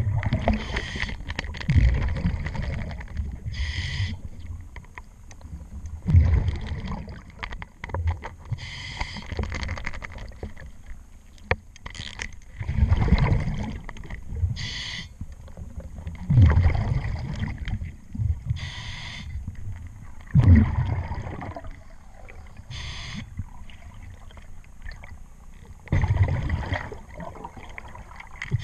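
Scuba diver breathing on a regulator underwater: a hissing inhalation through the demand valve alternates with a low gurgling burst of exhaled bubbles, about seven breaths in all. Small metallic clicks in between come from a hand tool tightening the screws of a propeller-shaft zinc anode.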